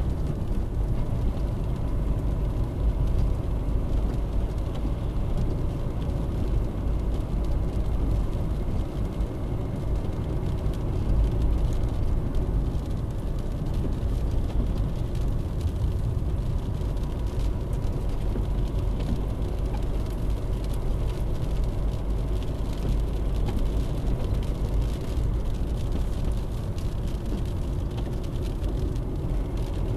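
Car driving on a road, heard from inside the cabin through a windscreen-mounted dash cam: a steady low rumble of engine and tyre noise.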